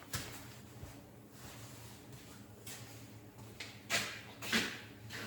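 A few brief scraping knocks over a low, steady background, the two loudest about four seconds in and half a second apart.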